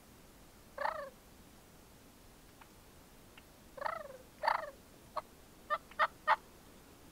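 Turkey calls: three short yelping notes, then four quick, sharp clucks near the end.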